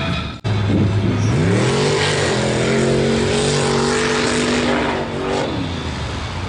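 Mud truck engine revving hard as the truck ploughs through a mud pit: the pitch climbs over about a second, holds at high revs, then drops off near the end.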